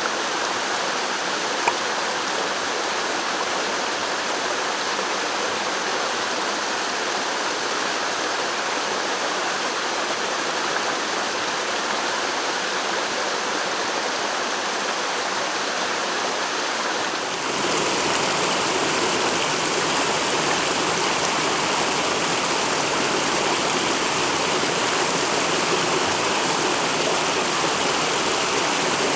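Mountain headwater stream flowing, a steady rush of water. About two-thirds of the way through, it cuts abruptly to a louder, fuller rush of water from another stretch of stream.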